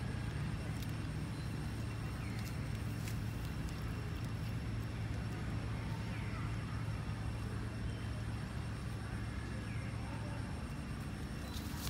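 A steady low hum, with a few faint short chirps over it.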